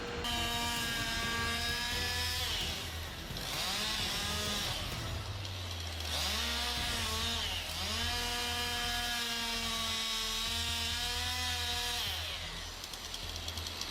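Two-stroke chainsaw running at high revs. Its pitch sags twice as the saw bogs down under load in the cut and climbs back, and it stops near the end.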